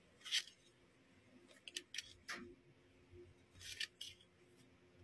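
Glossy photocards sliding and snapping against one another as they are shuffled through by hand: several short, dry scrapes, with a few sharp clicks and a tap near the middle.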